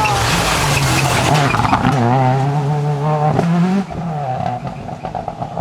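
Seat Córdoba WRC rally car's turbocharged four-cylinder engine running hard at a steady high pitch, with sharp pops in the middle. About two-thirds through the note rises briefly, then falls off and gets quieter.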